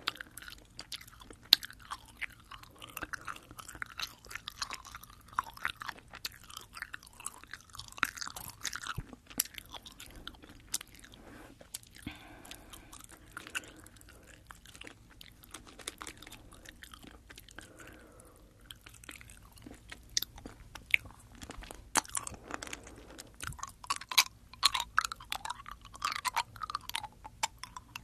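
Close-up chewing of sugar-coated Fini sour gummy candies into a binaural microphone: sticky, wet mouth sounds with many quick smacks and clicks. The chewing thins out for a while in the middle and picks up again near the end.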